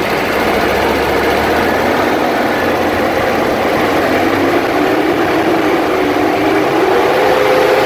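Toyota Land Cruiser diesel engine running steadily, with a tone that rises slightly in pitch over the last few seconds.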